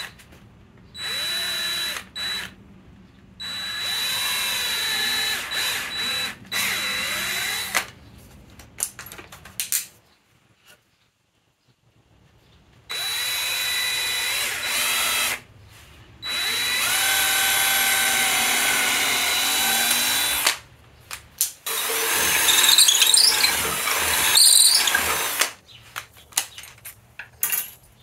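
Power drill with a small twist bit boring into a wooden plane-tote blank. It runs in several bursts of a few seconds each, with a steady high whine, and stops briefly in the middle. Scattered knocks follow near the end.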